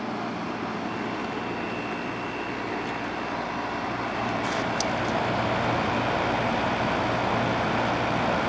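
TCL 5,000 BTU air conditioner running in cooling mode, compressor on and fan on low: a steady rush of air over a low hum, with a faint thin high tone. It gets a little louder about four seconds in.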